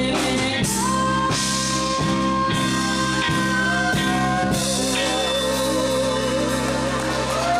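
Live band: a woman singing lead through a microphone, holding long notes, the later one wavering, over electric guitar and drums with regular hits and cymbal crashes.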